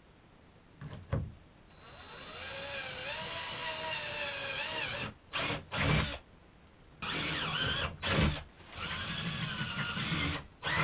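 Cordless drill boring holes through a ski into the plastic hull of an ice-fishing sled. It makes three runs of motor whine, the first about three seconds long, with the pitch wavering as the bit bites. A few short knocks fall in between.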